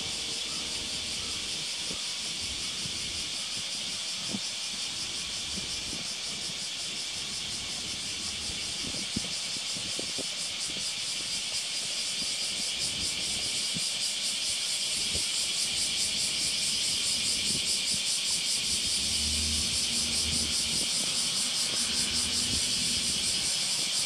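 A steady high-pitched hiss that grows louder about halfway through. Near the end a car approaches, its low engine and tyre hum rising under the hiss.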